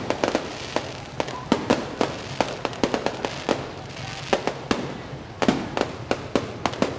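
Fireworks going off in quick succession: an irregular run of sharp bangs and pops, several a second, with a hiss between them.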